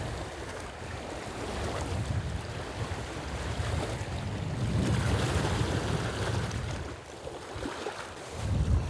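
Wind gusting over the microphone with waves lapping at a rocky lakeshore. The gusts swell about halfway through and again near the end.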